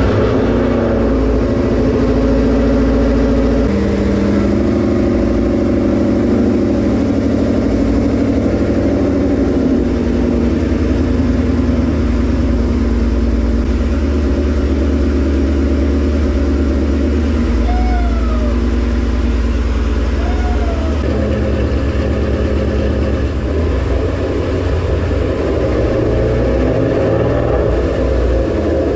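Ford Mustang GT's V8 engine running steadily just after being started, its note shifting a few times, on the first start after a transmission and clutch swap.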